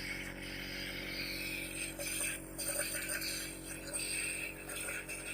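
Electric compressor nebulizer running: a steady motor hum with a hiss of air and mist over it.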